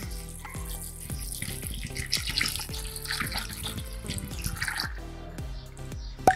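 Water poured from a plastic bottle onto dried chickpeas in a glass bowl, splashing for about five seconds as the bowl fills. Near the end there is a single sharp click.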